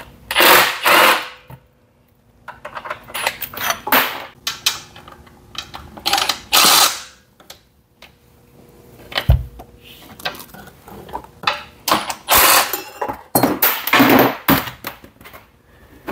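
Ridgid cordless impact driver hammering in several short bursts as it undoes the bolts of a mower deck guard bracket, with metal clinks and a dull thump between the bursts.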